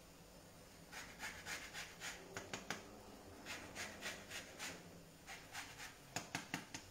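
Lemon rind being grated on a hand grater: quick rasping strokes, about four a second, in three runs with short pauses between, starting about a second in.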